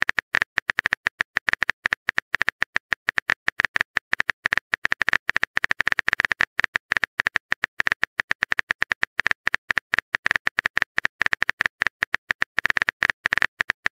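Simulated phone-keyboard typing: a rapid, uneven run of short key taps, about eight to ten a second, as a chat app types out the next message.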